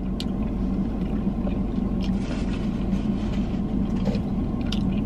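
Steady low hum of a car idling, heard from inside the cabin. A few faint clicks of chewing come over it.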